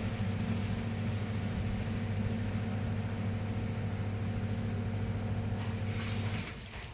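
A motor running with a steady low hum, cutting off near the end.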